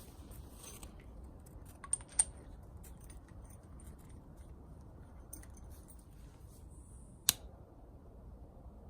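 Small handling noises: a few sharp clicks, the loudest about seven seconds in, with brief high scraping sounds between them, over a low steady background.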